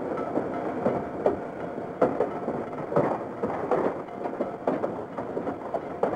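Steam tram carriage rolling along the track: a steady running rumble with irregular knocks and rattles from the wheels and the carriage.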